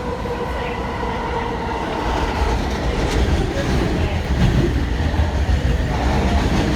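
AirTrain JFK car running along its guideway, heard from inside the car: a steady low rumble with a motor whine that fades out about two seconds in, after which the rumble grows louder and rougher with scattered clicks.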